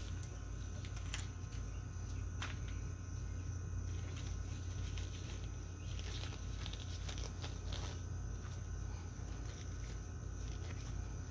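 Steady low hum with a faint steady high tone, and scattered small clicks and rustles of gloved hands handling things by the tub.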